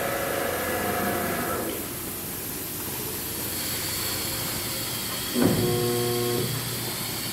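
36-inch AEM wide-belt grinder and deburring machine running: a steady machine hum with a steady whine that drops away about two seconds in, leaving an even rushing noise, then a louder pitched hum starts abruptly near the end and stops about a second later.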